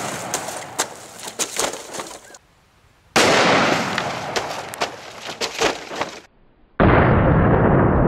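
Report of an AR-15 carbine firing a 5.56mm NATO round through drywall into water jugs, dying away with a string of sharp cracks; the same shot sounds again about three seconds in and dies away the same way. Near the end it comes in once more as a low, muffled boom, slowed down with the slow-motion replay of the jugs bursting.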